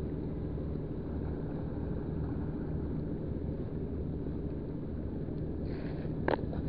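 Steady low engine drone with an even rumble underneath, with a short rustle and one sharp click near the end.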